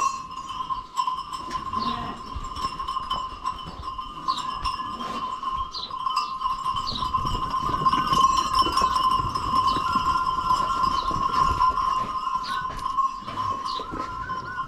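Bells on a penned flock of sheep ringing continuously, a steady jangling tone with many short clinks as the animals move.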